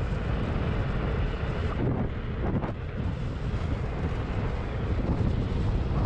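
Steady wind rumble buffeting the microphone of a camera on an electric drift trike moving at about 30–40 km/h, mixed with the trike's rolling noise on asphalt.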